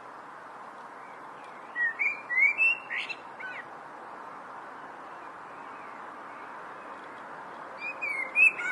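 A songbird singing two short phrases of quick rising and falling chirps and whistles, one about two seconds in and another near the end, over a steady background hiss.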